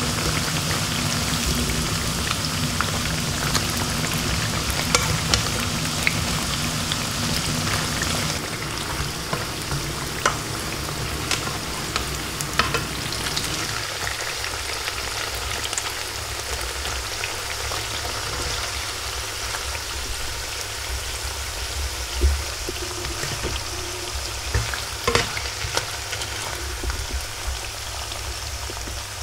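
Breaded tempeh slices sizzling steadily as they fry in hot oil in a nonstick frying pan, with occasional sharp clicks of tongs against the pan as the pieces are turned and lifted out.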